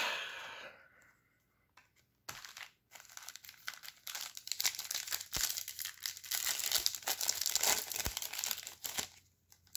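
Wrapper of a trading card pack crinkling and tearing as it is ripped open. The dense run of crackles starts about two seconds in and stops shortly before the end.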